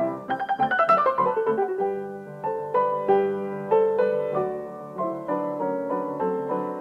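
Blüthner piano played live: a quick descending run of notes in the first two seconds, then repeated chords over a held low note.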